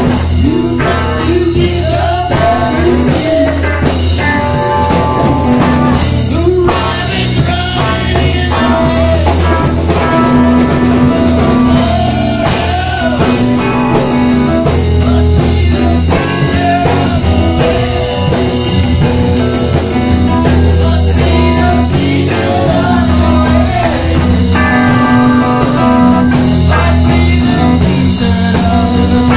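Live blues-rock band playing: electric bass, acoustic and electric guitars and drums, with a man singing.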